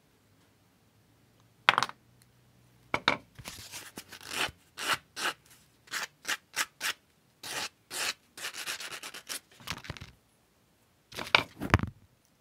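Sandpaper rubbed in short back-and-forth strokes across a small closed steel ring, smoothing the join. The strokes start about two seconds in and come in quick irregular runs with brief pauses.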